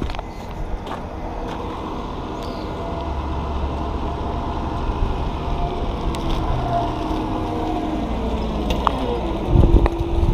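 Diesel engine of a wheel loader with pallet forks, growing louder as the machine drives closer and loudest as it passes right alongside near the end.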